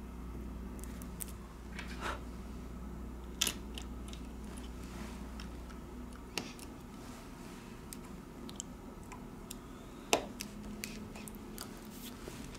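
Small scattered clicks and taps of a Xiaomi Mi 9's parts being handled by hand: the battery is set into the frame and connectors are pressed onto the board, with sharper clicks about three and a half and ten seconds in. A low hum underneath stops about six seconds in.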